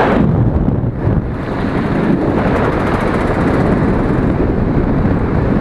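Loud wind buffeting on an action camera's microphone, a dense steady rumble.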